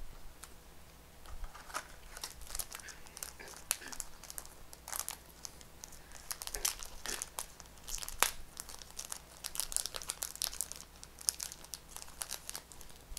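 Trading-card booster pack wrapper crinkling and crackling in the fingers as it is worked at and pulled to tear it open, in quick irregular crackles with a few sharper snaps. The pack is stubborn and slow to tear open.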